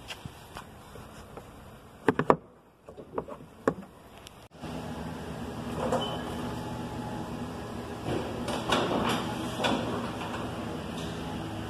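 An International truck's tilt hood being unlatched and swung open: sharp clicks and knocks from the hood latches, the loudest a pair about two seconds in. From about four and a half seconds a steady low hum runs underneath, with clunks and rattles as the large hood tilts forward.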